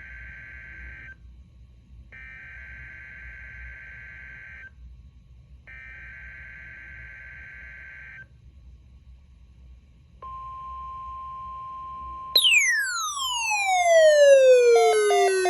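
NOAA Weather Radio SAME header data bursts: three harsh buzzing bursts of about two and a half seconds each, about a second apart. Then the steady 1050 Hz weather radio alert tone begins. About twelve seconds in, a loud falling electronic sweep and electronic music come in over the tone.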